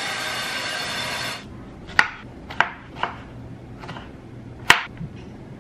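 A knife cutting strawberries on a wooden cutting board: five sharp knocks of the blade hitting the board, the last the loudest. Before them a steady rushing hiss stops abruptly about a second and a half in.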